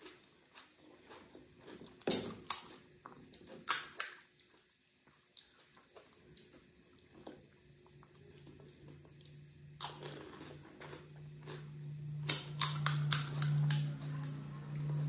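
Crisp cracks and crunches of fried panipuri shells being broken open with a fingertip and bitten: scattered sharp snaps, with a quick run of them near the end. A low steady hum comes in about halfway and runs through the rest.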